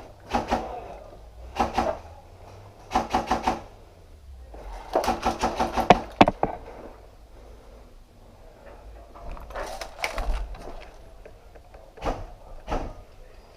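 Airsoft guns firing in short rapid bursts of several shots each, with pauses between bursts, some single shots near the end.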